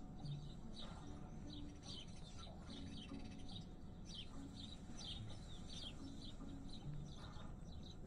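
Small songbirds chirping and twittering over and over, faint, high and quick, over a quiet outdoor background, with a few faint low short notes underneath.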